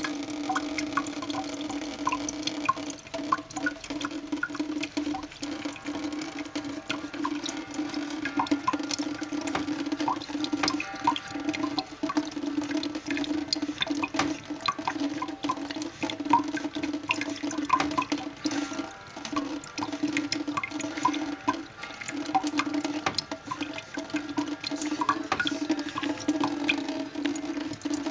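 Thin stream of tap water trickling into a stainless steel kitchen sink, with a steady hum under it and many small irregular drips and ticks as a Maine Coon cat laps at the stream.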